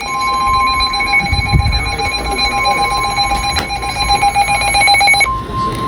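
A weather radio's alert alarm: rapid electronic beeping, about ten beeps a second, over the steady high NOAA Weather Radio warning alarm tone, which signals that a warning message is about to be broadcast. The beeping stops about five seconds in while the steady tone carries on.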